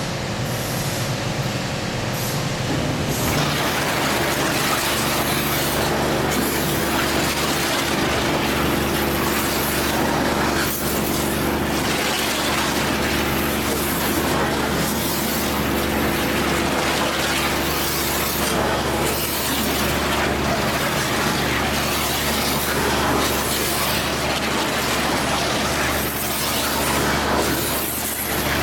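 Water jets from an IBC wash station's spray head blasting the inside of a plastic IBC tote, with the wash pump running: a steady rushing hiss over a low hum, growing a little fuller about three seconds in.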